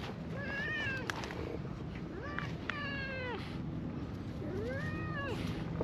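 A cat meowing repeatedly: three or four separate meows, each rising and then falling in pitch, about one every second or two.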